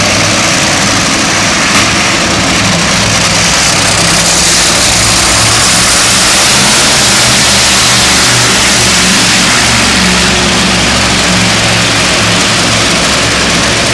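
Monster truck's supercharged V8 engine running hard, revving and wavering in pitch while the truck spins donuts on a dirt floor. Very loud and continuous.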